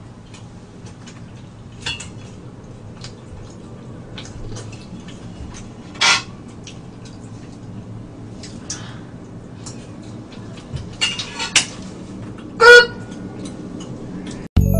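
Metal spoon clinking and scraping in a stainless steel bowl in scattered strokes. The loudest, a clank a couple of seconds before the end, rings briefly.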